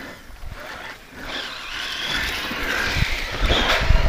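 Losi Tenacity T 4WD truggy's brushless electric motor whining as the truck accelerates, growing louder from about a second in, with heavier rumble near the end as it drives off the ramp into a jump.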